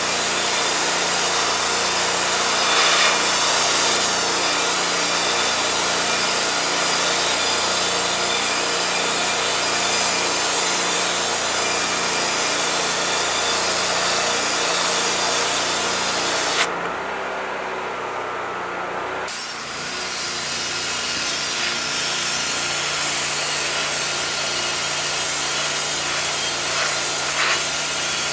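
Unimanix ARH-4070GDCS hot-water pressure washer blasting a high-pressure jet onto a metal plate to strip paint, stickers and rust: a loud, steady spray hiss over a low, steady machine hum. Around the middle the hiss stops for about two and a half seconds, then the spray starts again.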